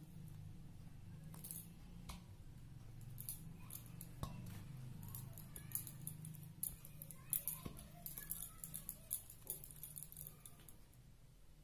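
Faint, scattered crackles and soft clicks of hands pinching off and rolling dough balls and setting them in a steel bowl, over a low steady hum.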